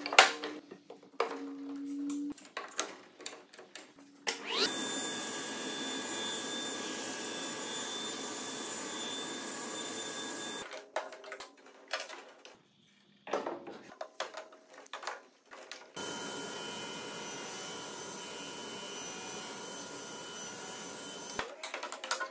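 Sliding table saw and its dust extraction running in two steady stretches of about six seconds each, the motor's pitch rising as it winds up at the start of the first. Between them come short knocks and clatter of wood pieces being handled on the saw table.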